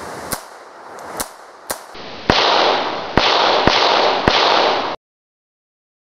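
USFA ZiP .22 LR pistol firing: about seven sharp cracks at uneven intervals, less than a second apart. From about two seconds in, a loud rushing hiss fills the gaps between the shots. The sound cuts out abruptly about five seconds in.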